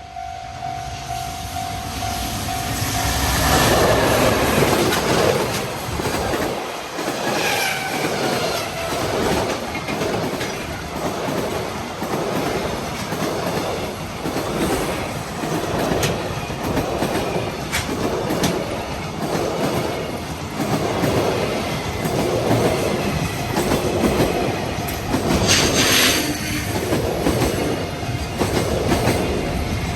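Long JR Freight train passing over the level crossing at speed, its wheels clattering rhythmically over the rail joints throughout. The crossing's warning bell rings with a steady tone before the train arrives and drowns it. Brief wheel squeals come about a quarter of the way in and again near the end.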